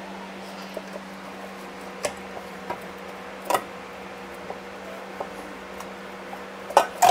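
Scattered light clicks and clinks of hand tools and metal parts being handled, over the steady hum of a shop fan; the sharpest is a quick double clink near the end.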